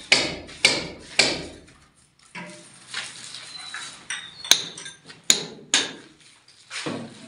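Hammer blows ringing in a bare concrete-block room: three strikes about half a second apart, then after a short pause a few more spaced, irregular strikes.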